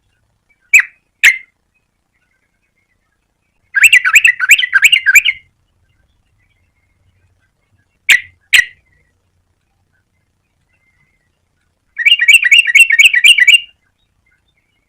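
Yellow-vented bulbul calling: pairs of short, sharp notes alternating with quick, bubbling chattered phrases of about a second and a half, with clear pauses between.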